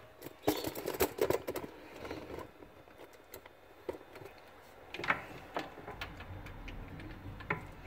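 Scattered light clicks and taps of handling at a jeweller's rolling mill, a quick cluster in the first couple of seconds and a few single clicks later.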